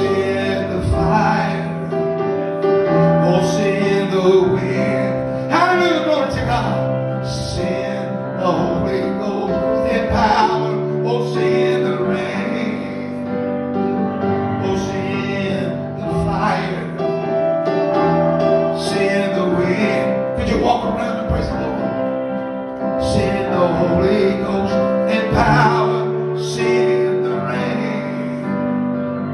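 A man singing a worship song into a microphone, accompanied by a keyboard playing held chords.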